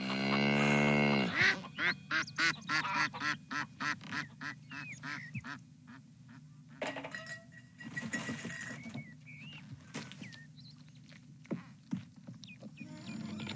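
Farm animals calling: a long low call, then ducks quacking in a quick run of three or four quacks a second, thinning out to scattered quieter quacks and small chirps.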